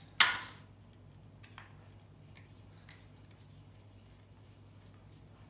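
A single sharp snap a moment in, dying away over about half a second, as an aluminium heatsink is prised off a circuit board, followed by a few faint clicks of the parts being handled.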